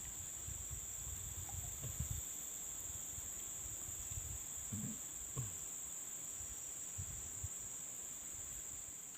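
A steady, high-pitched insect chorus shrilling without a break, with low rumbling from the handheld microphone in the first two seconds and a few faint knocks about halfway through.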